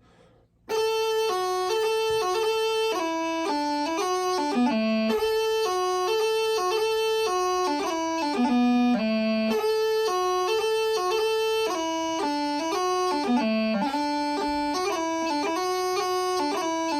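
Highland bagpipe practice chanter playing a reel melody with quick grace notes, doublings and strikes, with no drones. It starts under a second in.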